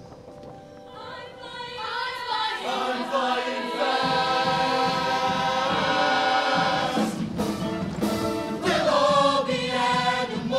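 Large mixed show choir singing sustained full chords, swelling from soft to loud over the first few seconds. Around seven seconds in the chord breaks off with a few sharp hits, then the voices come back in.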